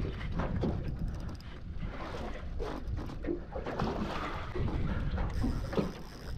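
Water lapping and slapping irregularly against the hull of a small aluminium boat, with wind rumbling on the microphone.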